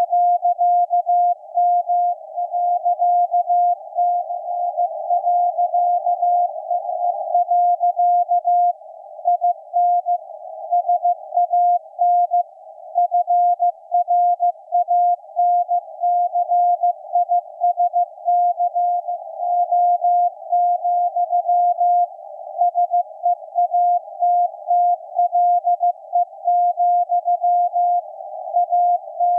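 Morse code from maritime coast station KPH received on shortwave: a single-pitched beep keyed on and off in dots and dashes, over a narrow band of hiss from the receiver's CW filter.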